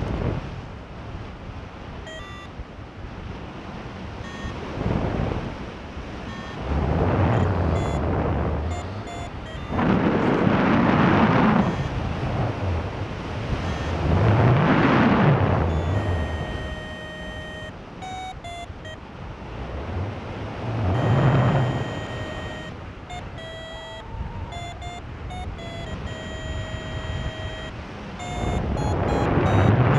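Wind rushing over the microphone in surges that swell and die away every few seconds, with a paragliding variometer's short electronic beeps at changing pitches over it, most of them in the second half.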